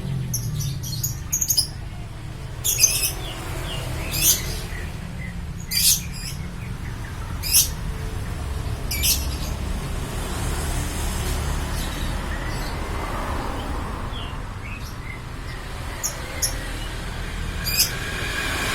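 Lovebirds chirping: sharp, high calls repeat about every second and a half, with softer chirps in between, over a steady low rumble.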